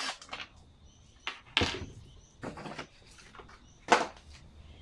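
A few sharp clicks and knocks of plastic parts being handled as the air filter cover is unclipped from a Briggs & Stratton 500E lawnmower engine, the loudest knock near the end.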